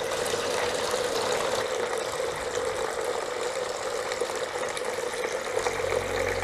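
Water splashing steadily from bowl to bowl down a Cascading Rocks tiered tabletop fountain. A low steady hum comes in near the end.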